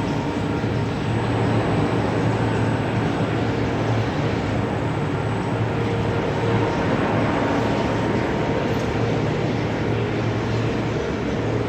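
CNC machine running steadily while notching a rolling-mill roll for TMT bar: a constant mechanical din with a low hum and no distinct knocks.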